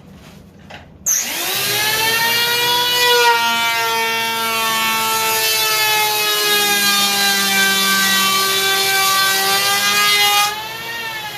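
Modified electric hand planer switched on about a second in, spinning up to a steady high whine and shaving the foam deck of a surfboard blank along the stringer in one long nose-to-tail pass. Near the end the cutting hiss stops as the planer lifts off and its motor winds down in pitch.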